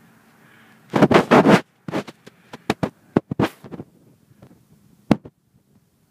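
Handling noise close to the camera's microphone: a burst of loud scratching and crackling clicks about a second in, then scattered sharp clicks, as a hand works around the lens and the plastic cones.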